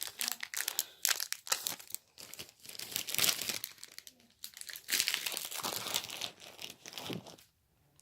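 Foil wrapper of a Pokémon TCG booster pack crinkling and tearing as it is opened, in a string of crackly bursts that stop about seven seconds in.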